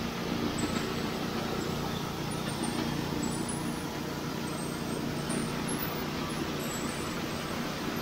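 Norwood HD36 portable band sawmill running under load, its band blade cutting steadily through a log in newly fitted roller blade guides, with no blade lube. The engine hum and sawing noise hold an even level throughout.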